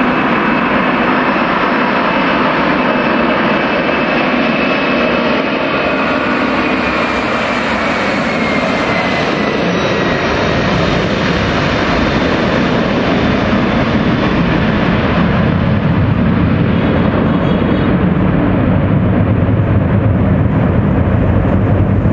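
Boeing 747-400 freighter's four jet engines at takeoff power on the takeoff roll: a loud, steady jet roar. A high fan whine falls in pitch about eight seconds in, and a deep rumble builds through the second half.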